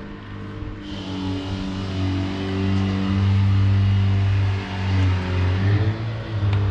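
A motor runs with a low, steady hum that grows louder over the first few seconds, its pitch shifting a few times.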